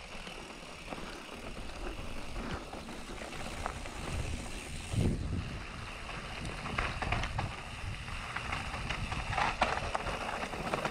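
Canyon Neuron CF9 mountain bike rolling downhill on a dirt and gravel trail: steady tyre rumble with scattered rattles and knocks from stones under the wheels, and a harder jolt about five seconds in.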